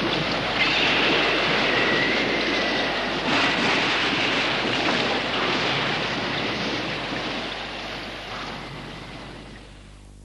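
Heavy rainstorm with wind: a steady, dense hiss of pouring rain that slowly fades out near the end.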